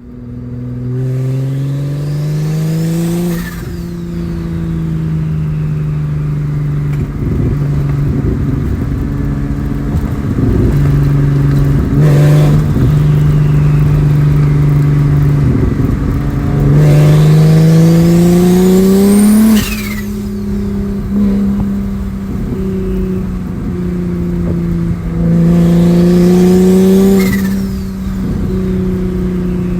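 BMW 335i's N54 inline-six, converted to a single big turbo, pulling hard three times with the turbo's whistle rising along with the engine. Each time the throttle closes, the turbo flutters in a rapid chattering burst before the engine settles back to a steady run.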